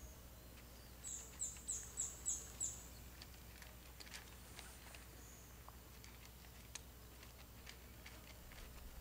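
A cat crunching dry kibble: faint scattered clicks. About a second in, a bird gives six quick high-pitched notes, the loudest sound.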